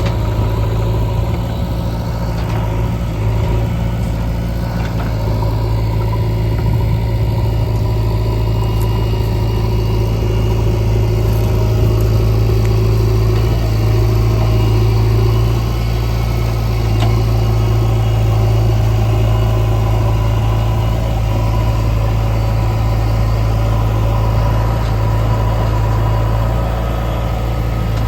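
Heavy diesel engine running steadily at a constant speed, a loud low hum that barely changes.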